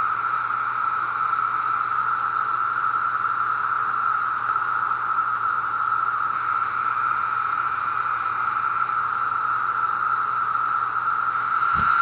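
A chorus of Brood X periodical cicadas: a loud, steady, unbroken drone. Near the end there is a brief low bump.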